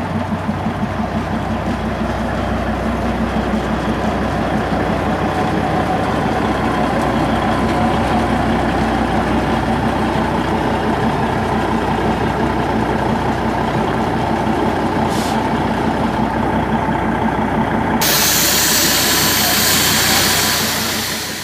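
Darjeeling Himalayan Railway toy train's diesel locomotive running steadily as it hauls its coaches past. Near the end a louder, brighter hiss comes in over the engine sound.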